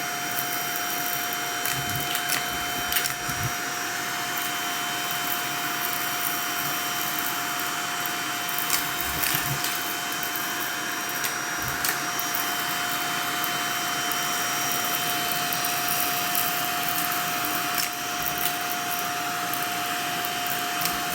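Vacuum cleaner running steadily with a constant motor whine, broken now and then by sharp clicks and rattles as coins are sucked up the hose.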